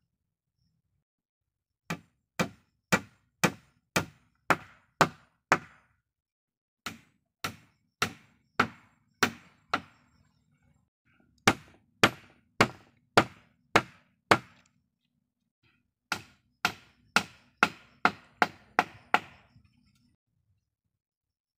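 Hatchet used as a hammer, striking the wooden poles and slats of a door frame: four runs of sharp knocks, about two a second, with short pauses between runs.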